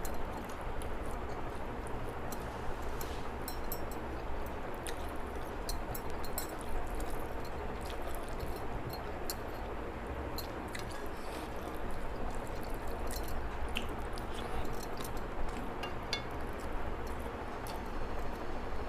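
Eating by hand: small wet squishes and scattered clicks of fingers working rice and fish curry on a plate, with chewing, over a steady background hiss.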